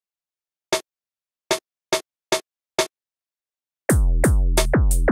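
Five short snare hits, a snare sample played one-shot through Reason's Grain sample manipulator. About a second before the end, an electronic drum beat starts: synth kicks whose pitch drops, interleaved with the snare hits.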